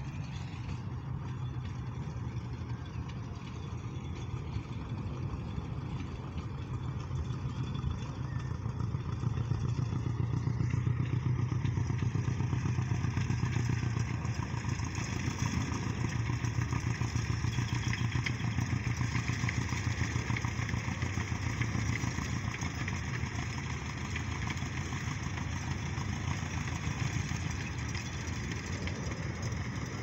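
Engine of a small tourist train running steadily as it travels past, growing louder about ten seconds in and easing off again later.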